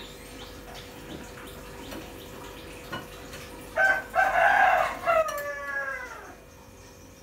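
A rooster crowing once, about four seconds in: a few short notes, then a long held note that slides down at the end. Faint clicks of dishes being handled come before it.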